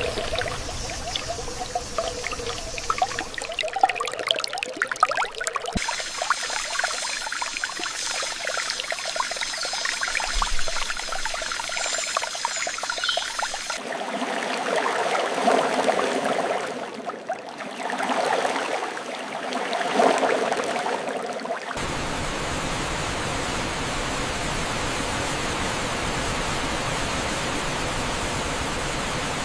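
Running water in spliced takes: splashing and trickling at first, then a pouring flow that surges and eases, then, from about three quarters in, a steady even rush. Each change comes abruptly.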